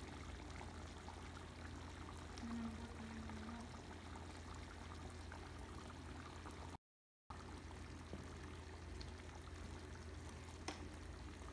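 Chicken caldereta simmering in a pot: soft, steady bubbling of a thick tomato-based stew over a constant low hum. The sound cuts out for a moment about seven seconds in.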